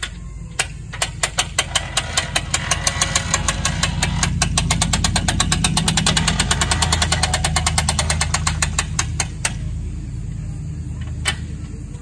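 Ratcheting clicks from a homemade mobile antenna tower's crank as the mast is cranked down. The clicks speed up from about three to about seven a second, stop suddenly, and one more click follows a couple of seconds later. A low steady hum runs underneath.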